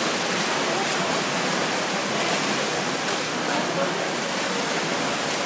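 Steady rushing splash of several swimmers kicking and stroking freestyle in an indoor pool, with faint voices in the background.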